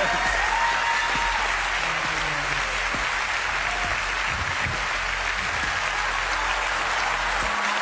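Large studio audience applauding steadily.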